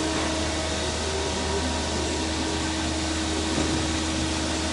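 Steady workshop background noise: a constant low hum with hiss and a few faint steady tones, no distinct event.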